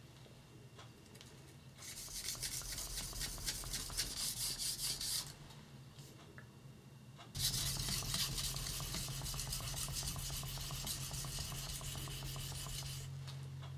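A Sugimoto yanagiba blade is stroked rapidly back and forth on an Amakusa natural sharpening stone, making a gritty scraping. It comes in two runs, one of about three seconds and then, after a short pause, a longer one of about six seconds.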